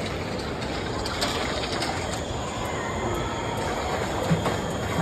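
Steady rumbling background noise of a busy shopping-mall atrium, with a brief low thump about four seconds in.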